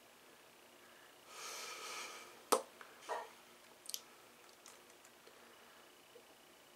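Quiet room with a soft breath, then one sharp click and a few fainter clicks and mouth sounds while lipstick is being put on.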